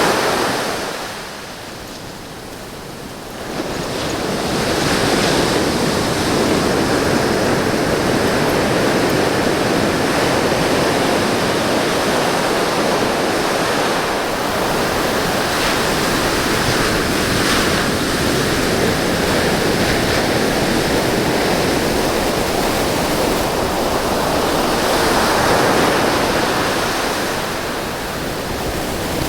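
Ocean surf breaking and washing up a beach: a continuous rush of waves that drops lower for a couple of seconds about a second in, then builds back and swells again near the end.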